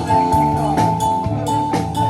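A rock band playing live: a drum kit keeps a steady beat under a held high note and sustained chords.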